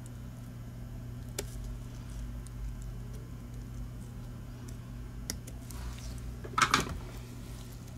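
Small clicks and taps of hand soldering work on a mouse circuit board while the old micro switches are desoldered, over a steady low electrical hum. About two-thirds through there is a brief louder rattle of several clicks.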